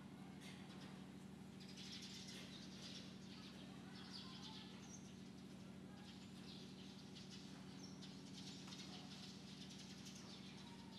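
Near silence: a faint steady low hum, with faint bird chirps now and then.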